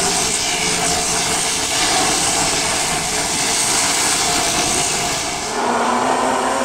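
Dirt modified race cars running at speed on a dirt oval, a loud continuous wash of engine noise. About five and a half seconds in it changes abruptly to a clearer, more pitched engine note.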